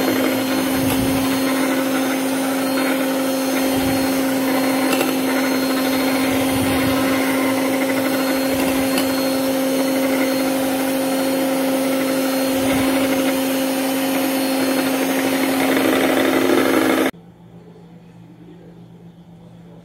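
Mondial electric mixer running at a steady pitch, its beaters whipping cream to stiff peaks; it is switched off and cuts out suddenly near the end.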